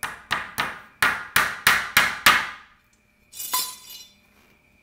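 Claw hammer driving a nail through a small steel mending plate into pine 2x4 lumber: about eight quick blows, roughly three a second, getting louder as the nail goes home, followed by a short clink.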